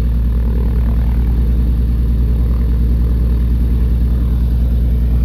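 The left Continental IO-470 engine of a 1959 Cessna 310C idling steadily, shortly after a cold start, heard from inside the cockpit as a loud, even, low running sound with a fast regular pulse.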